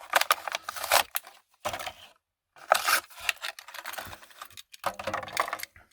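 Plastic blister pack of a Hot Wheels car being ripped open by hand, crackling and tearing in several bursts with short pauses between them.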